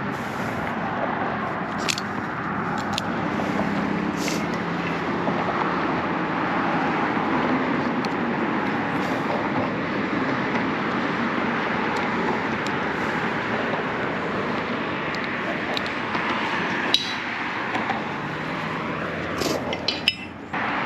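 Steady hum of road traffic, with a few sharp clicks and clinks scattered through it.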